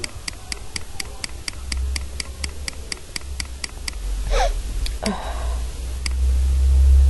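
Computer mouse scroll wheel clicking in a fast even run, about five clicks a second for some three seconds, then a few single clicks, over a steady low hum.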